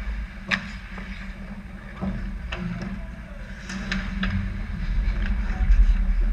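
Ice hockey play close to the net: sharp clacks of sticks and puck, several of them, and the scrape of skates on the ice, over a low rumble that swells near the end.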